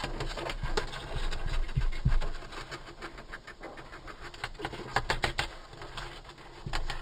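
Death's-head hawkmoth beating and fluttering her wings, an irregular rattle of rapid taps over a low rumble, loudest about two seconds in and again in a cluster around five seconds.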